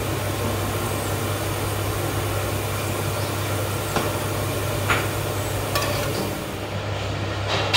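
Chicken curry simmering in a wide aluminium pot on the stove with a steady sizzling hiss over a low hum, and a few light knocks of a spatula against the pot as it is stirred, about four to six seconds in.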